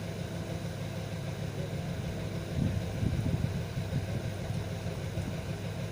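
Steady low mechanical hum, like a motor or fan running, with a second or so of louder irregular low rumbling near the middle.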